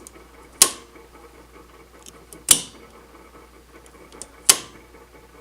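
Three sharp clicks or knocks about two seconds apart, with a few fainter ticks between them, over a faint steady low hum.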